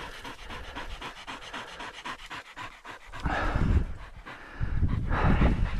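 Pheasant-hunting dog panting fast, winded from a retrieve through thick cover. There are two louder stretches of rough noise, one about three seconds in and one near the end.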